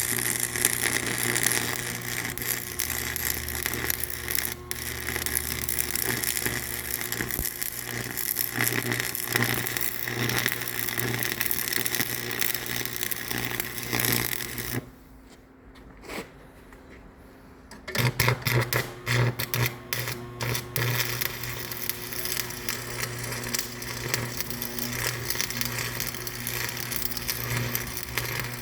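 A machine running steadily with a constant hum and rattle, cutting out for about three seconds midway and then starting up again.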